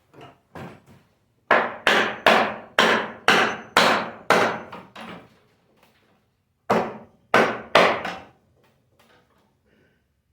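Repeated hammer blows: about seven hard knocks at roughly two a second, then a pause of over a second and four more.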